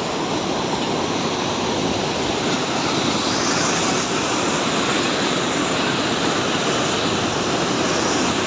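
Steady rush of fast-flowing mountain water, an even loud hiss with no rhythm or change.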